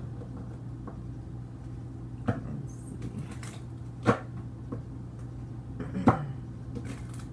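A deck of tarot cards being shuffled by hand: soft rustling and sliding of cards, with three sharp snaps of cards about two, four and six seconds in, the last two the loudest. A steady low hum runs underneath.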